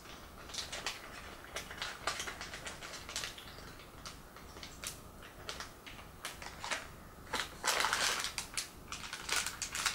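Small, scattered clicks and taps of little doll parts being handled in the fingers, then louder rustling of packaging from about seven and a half seconds in, as hands reach into the box.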